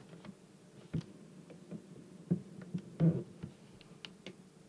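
A few light clicks and knocks, the clearest about one, two and three seconds in, over a faint steady hum.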